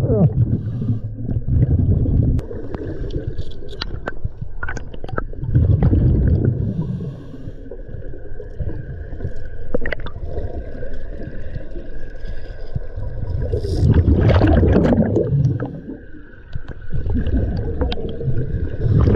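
Scuba regulator underwater: four bursts of exhaled bubbles, rumbling and gurgling, with quieter breathing noise between them.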